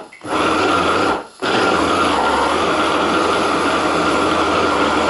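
Electric hand blender motor running on its chopper bowl, blending tuna, capers, anchovies and mayonnaise into a sauce. It runs in pulses, stopping briefly at the start and again just over a second in, then runs steadily with a high whine.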